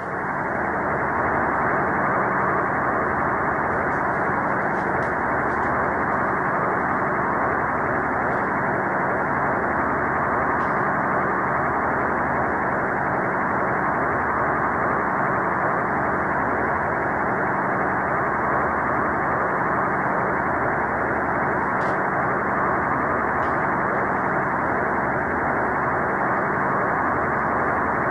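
Steady radio-like static hiss, muffled with nothing above the midrange, fading in just before and then holding at one constant level, with a faint hum and uneven low pulsing underneath.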